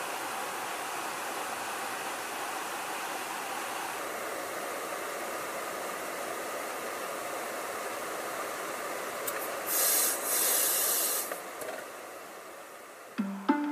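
Steady rush of airflow and jet engine noise during in-flight refuelling of a B-52, with a louder burst of high hiss about ten seconds in before the noise fades. Music starts just before the end.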